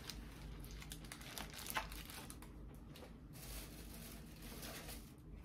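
Paper fast-food wrapping, the burger wrapper and takeout bag, crinkling and rustling as it is handled, in faint, irregular crackles.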